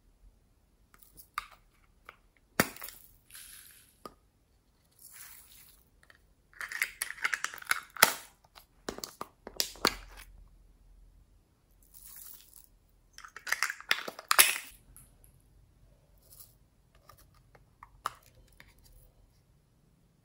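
Small plastic sequin-and-glitter cases being handled and opened: sharp plastic clicks and snaps, with short bursts of crinkling, rattling noise, loudest in two clusters about a third and two thirds of the way through.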